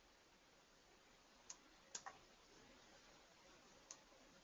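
Faint computer mouse clicks in an otherwise near-silent room: one click, then a quick pair about half a second later, and one more near the end.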